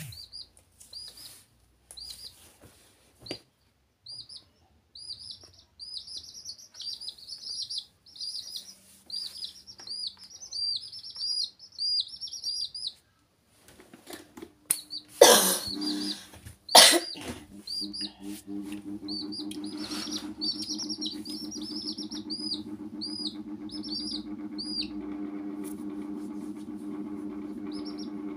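Young chicks peeping in quick runs of short, high, rising-and-falling cheeps. About halfway through come two loud knocks, and after them a steady low hum runs under the peeping.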